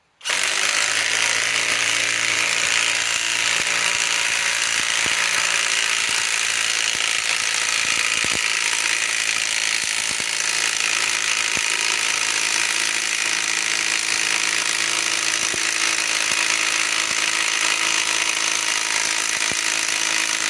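Kobalt compact cordless impact wrench hammering steadily on a long lag screw in a log, a dense, unbroken rattle of rapid impacts that starts abruptly. The screw is not driven home: the tool is not strong enough for it.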